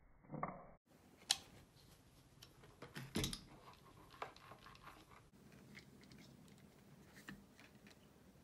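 Small clicks and taps of a hex driver and metal screws on an RC crawler's plastic transmission case as the motor mounting screws are tightened down. The sharpest click comes about a second in, a short cluster follows about three seconds in, and scattered faint ticks come after.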